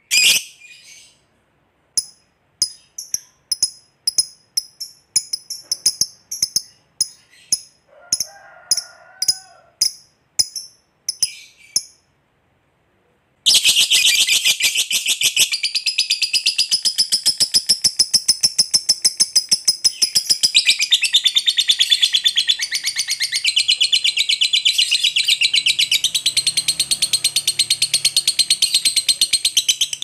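Pet lovebird giving a string of separate sharp, high chirps, then after a short pause breaking into a long, unbroken, rapid chattering trill. That trill is the 'ngekek panjang' (long chatter) that lovebird keepers prize and play to provoke rival birds.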